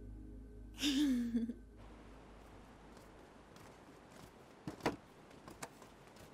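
A woman's short, wordless vocal sound, a murmured 'mm' with a bending pitch, about a second in. After it comes faint ambience with a few soft knocks.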